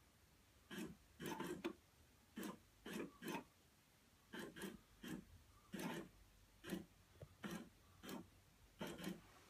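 PetSafe FroliCat Cheese cat toy's motor driving the toy mouse around its holes in short, irregular whirring spurts, about one or two a second.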